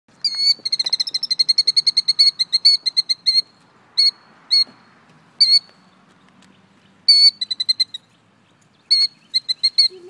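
Killdeer giving its shrill alarm call: a fast run of repeated high notes, about eight a second for some three seconds, then single calls and further runs near the end. The bird is alarmed at a person approaching its nest on the ground.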